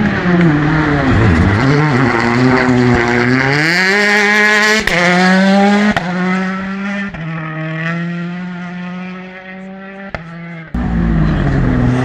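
Rally car engines at full throttle: the revs climb hard and break at each upshift, and near the end a car passes close by, its note dropping and rising again.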